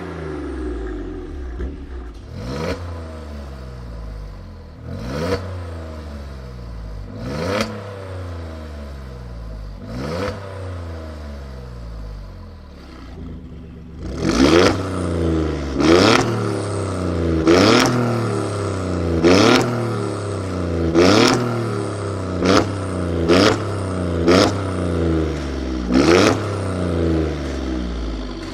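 Twin-turbocharged six-cylinder sports-car engine idling and being revved repeatedly in short blips, each a quick rise in pitch falling back to idle. From about halfway the blips come louder and closer together.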